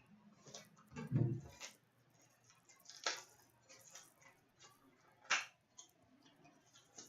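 Hands opening a trading card box and its packs: scattered rustles and sharp clicks of cardboard and wrappers, with a soft thump about a second in.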